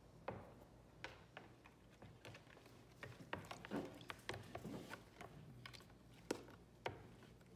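Wooden stick stirring glue and water in a plastic tub: faint, irregular clicks and taps of the stick against the plastic.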